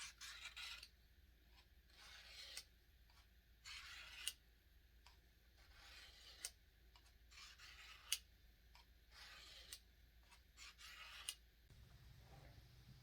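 Faint, repeated scraping strokes of a forged steel knife blade being drawn along a sharpener, about eight strokes, one every second and a half, several ending in a sharp tick as the edge leaves the sharpener.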